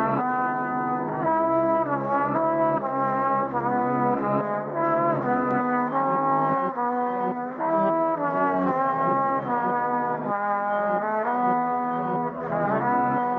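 Brass-toned music: several held notes sounding together as chords, changing every second or so, with the melody line bending in pitch here and there.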